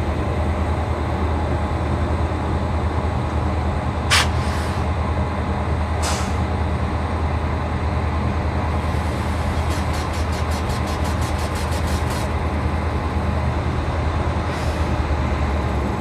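WAG9HC electric freight locomotive running at standstill with a steady whir and low hum. Two short sharp hisses come about four and six seconds in, and later a quick run of high ticks, about five a second, for nearly three seconds.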